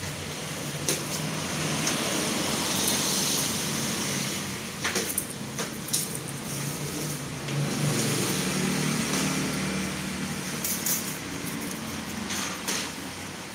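Steady motor-traffic noise with a low engine hum, over which garlic bulbs are handled: a few sharp clicks and rustles as the bulbs knock together and their papery skins are rubbed off.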